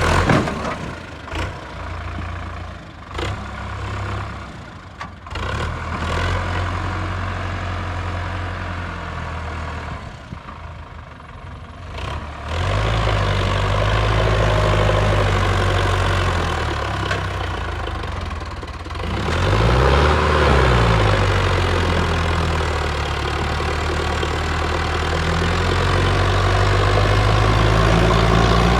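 Heavy machinery engine running, louder from about twelve seconds in, with its pitch briefly dipping and climbing back about twenty seconds in.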